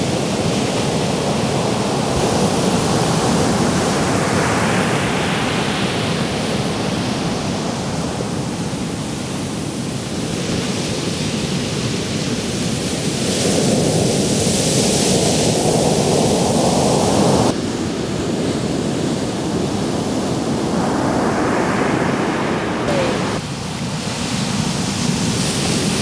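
Ocean surf breaking on a sandy beach: a continuous rush of water that swells and eases as successive breakers crash and their foam washes up the sand.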